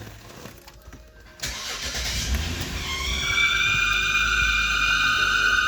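2012 BMW X5 xDrive35i's turbocharged straight-six starting about a second and a half in, then idling with a steady high-pitched whine that sets in about three seconds in. The owner traces the whine to a faulty valve cover with its built-in PCV valve.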